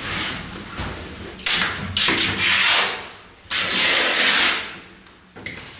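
Painted canvas being torn into strips by hand: three loud tearing noises, starting about one and a half, two and three and a half seconds in, each lasting up to about a second, over a low steady hum.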